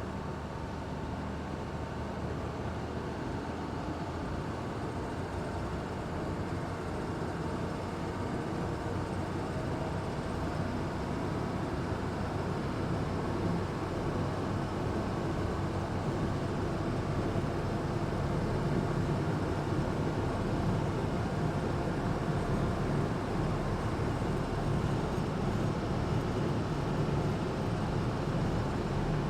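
Engine of an amphibious Duck tour vehicle running steadily while it cruises on the river, a continuous low drone that slowly grows louder.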